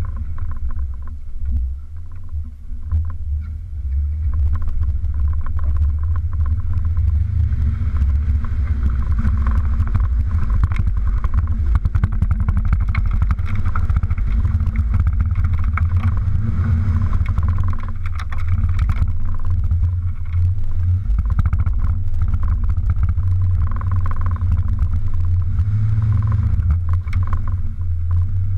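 Toyota 4x4 engine running as the truck drives over a rough, muddy trail, heard through a hood-mounted camera as a steady low rumble with frequent sharp knocks and rattles. The rumble dips briefly early on, then stays loud.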